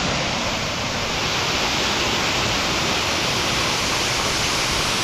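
Steady rushing of a tall waterfall, the water falling and crashing below.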